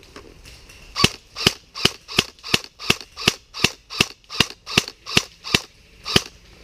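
Scoped airsoft rifle firing about fourteen single shots in a steady rhythm, between two and three a second, the last after a short pause.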